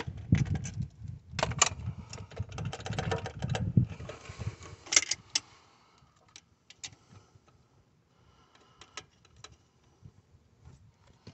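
Kobalt cordless driver run in short bursts, tightening the EGR valve's 12 mm nuts down onto their studs, a rattling buzz through the first few seconds. A sharp click about five seconds in, then only faint clicks of hands on the parts.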